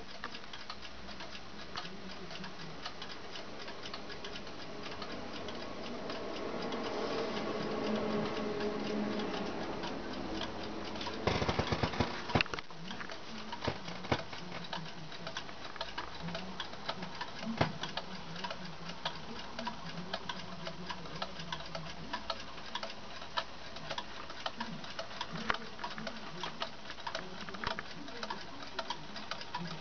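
Anker wall clock with an electromechanical movement ticking, with a short burst of louder clicks about eleven seconds in.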